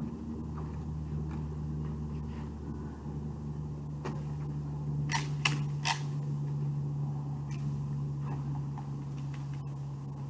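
Three sharp plastic clicks in quick succession, typical of a Nerf blaster being primed and fired, with a few fainter ticks. A steady low hum runs underneath.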